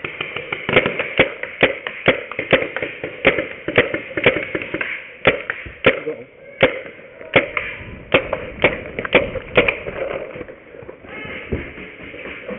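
Tippmann A5 paintball marker firing a steady string of single shots, about two a second, laying down cover fire; the shooting stops about ten seconds in.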